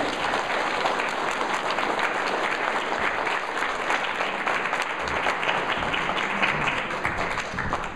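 Audience applauding: many people clapping, a dense patter that stops fairly suddenly near the end.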